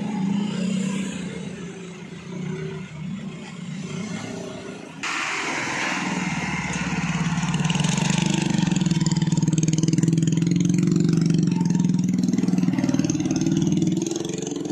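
Vehicles passing close at walking pace: a small car's engine first, then from about five seconds in the louder, steady low engine note of a light truck crawling by, easing off near the end.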